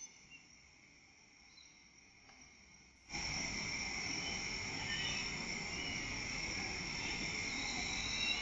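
Night insect chorus, crickets trilling steadily at a high pitch. About three seconds in it jumps abruptly much louder, with a hiss underneath.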